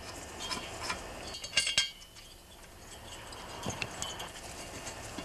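Small metal clinks of steel head bolts and their thick washers being set into the cylinder head of a two-stroke engine, with a few scattered taps and the loudest pair of clinks a little after one and a half seconds in.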